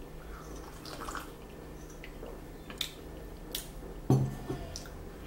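Quiet sips of tea from a ceramic mug with a metal spoon in it, with a few small sharp clicks and a short low voice sound about four seconds in.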